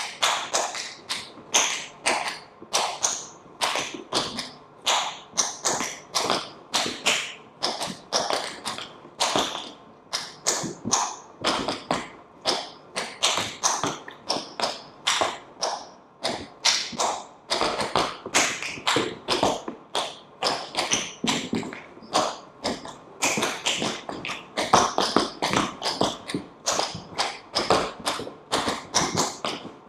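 A quick, uneven series of sharp taps, about two or three a second, going on without a break.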